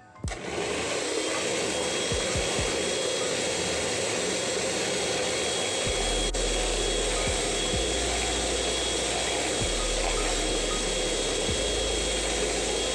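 Electric mixer running steadily at speed, beating whipping cream until it turns fluffy, with a thin steady motor whine over the whirr.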